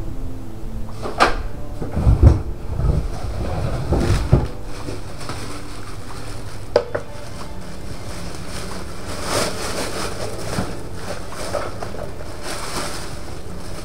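Several sharp knocks and clinks of hard objects being handled, with low thumps, in the first four seconds and one more click about seven seconds in. Steady background hiss throughout.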